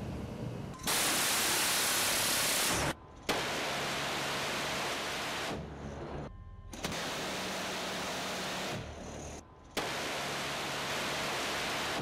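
Shipboard rapid-fire gun firing in four sustained bursts of about two seconds each, every burst starting and cutting off abruptly.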